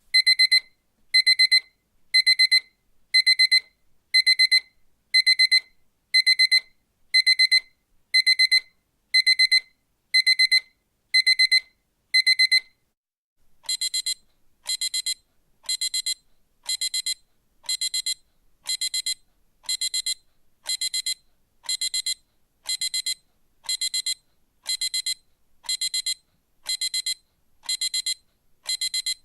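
Electronic alarm clock beeping: clusters of rapid high beeps, about once a second. About halfway through it switches to a second, quieter beep pattern with a different tone, still about once a second.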